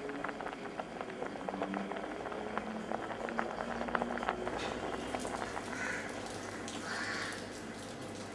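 Food crackling and sizzling in a steel pot on a gas burner, a dense patter of small pops. About halfway through it gives way to a crow cawing twice.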